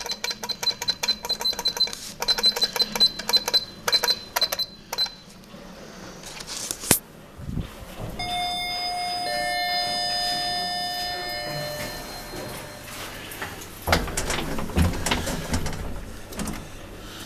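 A string of separate sound effects. First a rapid, even ringing like an electric bell for about five seconds, then a single sharp click. After that, several steady tones start one after another and are held together for a few seconds, and near the end comes a run of knocks and clatter.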